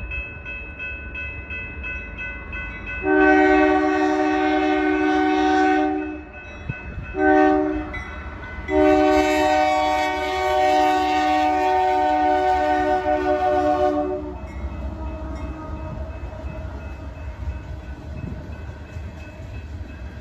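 Locomotive multi-chime air horn sounding a long blast, a short one, then a longer blast, the closing long-short-long of a grade-crossing signal. The low rumble of the passing train runs underneath and keeps going after the horn stops.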